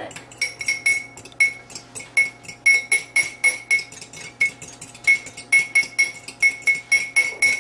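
A utensil clinking quickly and repeatedly against the side of a bowl as a raw egg is beaten, about four clinks a second, each with a short ring.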